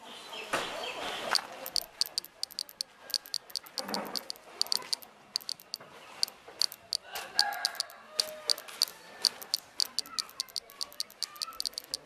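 A cicada held between fingers making a rapid, uneven series of short, sharp clicks, several a second, coming in runs: the protest clicking of a handled cicada.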